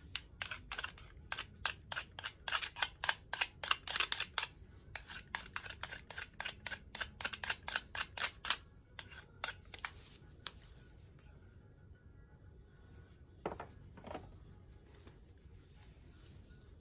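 Tulsi twigs being worked by hand, making a quick run of sharp clicks about three or four a second that stops about ten seconds in. Two duller knocks follow near the end.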